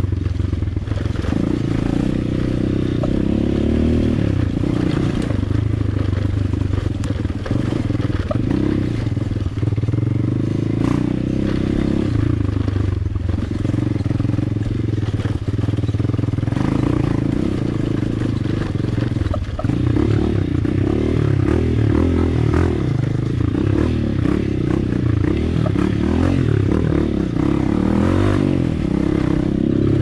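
Motorcycle engine running as the bike is ridden along, a steady loud drone whose note shifts now and then.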